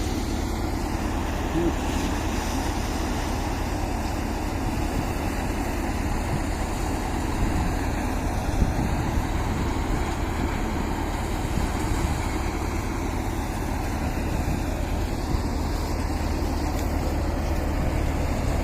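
An engine running steadily with a low drone, with a couple of faint knocks about halfway through.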